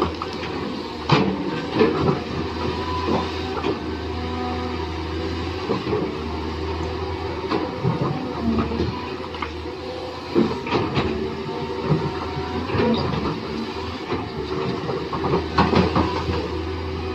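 Small electric motors and plastic gearboxes of RC toy construction vehicles whirring steadily, with frequent clicks and knocks of the parts moving.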